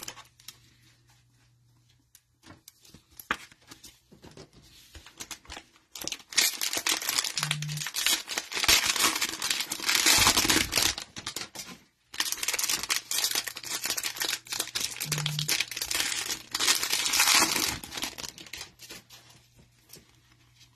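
Plastic cello-pack wrapper of trading cards crinkling and tearing as gloved hands open it, in two long crackling stretches, one starting about six seconds in and the other about twelve seconds in. A few faint handling ticks come before.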